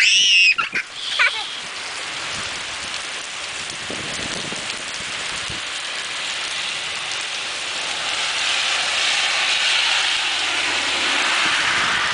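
Heavy rain pouring down in a storm, a steady hiss that swells louder from about eight seconds in. A brief high-pitched sound, likely a voice, comes at the very start.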